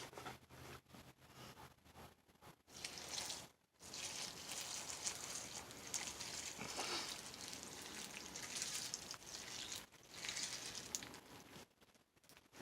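Milk being poured onto cereal inside the wax-paper liner of a small single-serve cereal box: a faint, uneven trickling splash lasting about eight seconds, after a few light clicks at the start.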